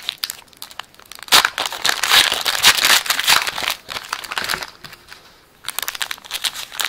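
Foil wrapper of a Topps trading-card pack crinkling and crackling as it is handled and torn open by hand, in irregular rustling spurts with a short pause about five seconds in.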